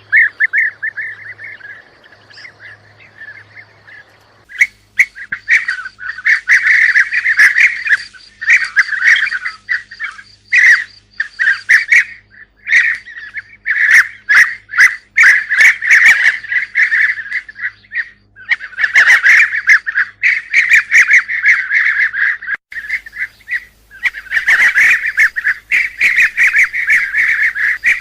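Bee-eaters calling: short rolling trilled calls, sparse at first and then dense and overlapping from about four and a half seconds in.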